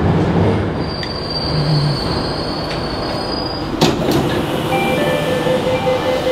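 Jakarta MRT train slowing into a station, rumbling, with a steady high brake squeal that ends in a sharp clunk as it stops about four seconds in. A steady electronic tone then sounds as the doors open.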